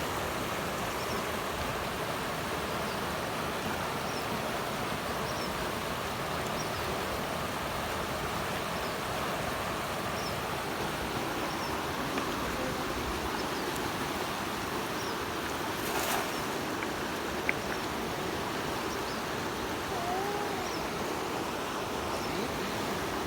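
Steady rushing of river water, with faint high chirps repeating about once a second and a short call about twenty seconds in.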